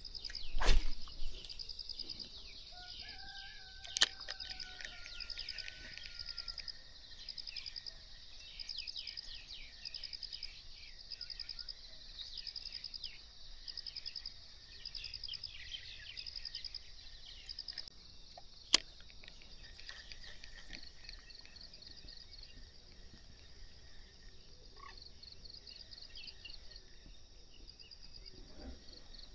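Outdoor ambience dominated by an insect chirping high, in short pulsing trills repeated about once a second. A brief loud rush of noise comes near the start, and two sharp clicks stand out, one about four seconds in and one near nineteen seconds.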